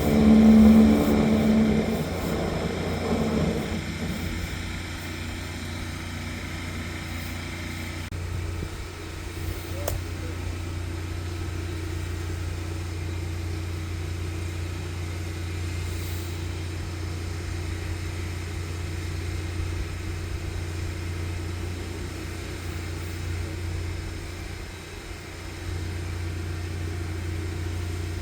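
Engine-driven high-pressure sewer jetter running, a steady low drone. It is loudest in the first three seconds or so, then settles to an even hum.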